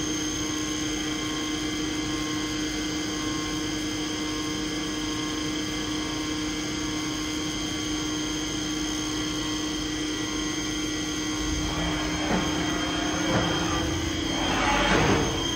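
HURCO BMC 30/M CNC vertical machining centre's spindle running at a steady speed: a constant high whine over a low hum. In the last few seconds rougher rushing noises come and go over it.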